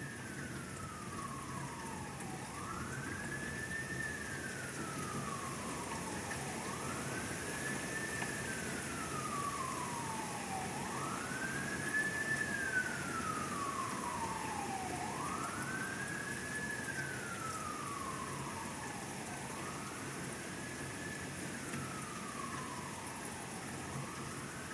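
A siren wailing, sweeping quickly up in pitch and then sliding slowly down, repeating about every four seconds, with steady rain falling underneath.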